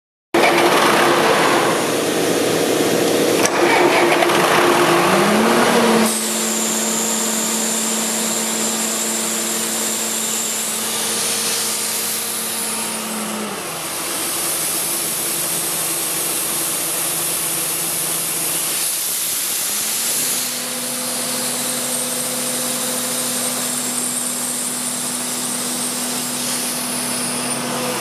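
Diesel engine of a GrimmerSchmidt H175 portable air compressor running steadily, loudest and harshest in the first six seconds. A steady hum rises in about five seconds in, drops out near the middle, and comes back about two-thirds through.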